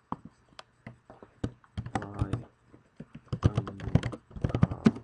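Typing on a computer keyboard: irregular key clicks, with a voice murmuring low in two stretches partway through.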